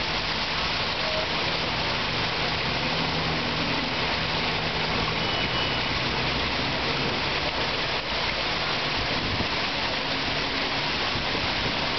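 Steady rush and splash of water pouring down a portable artificial waterfall, with a faint low engine-like hum underneath.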